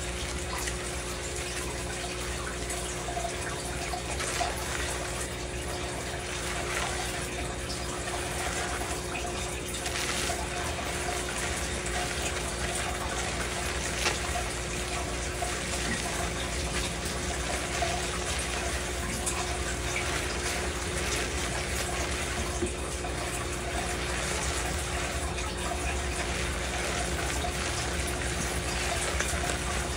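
Water running steadily from a tap into a stainless steel sink, with a steady hum underneath.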